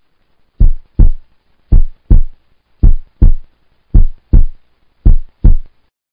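Heartbeat sound: five pairs of deep, loud lub-dub thumps, about one pair a second, then it stops.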